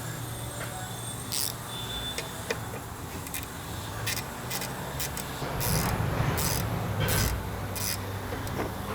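Hand work on car brake parts: a run of short scrapes, rubs and light clicks over a steady low hum.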